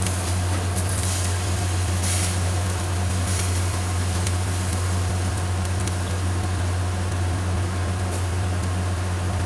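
A steady low hum under a constant hiss, with a few faint clicks in the first few seconds as chicken pieces are turned with tongs on a wire grill over charcoal.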